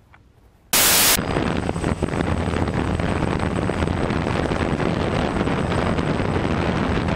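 A loud half-second burst of static, then a steady rushing noise with a low hum and a thin high whine.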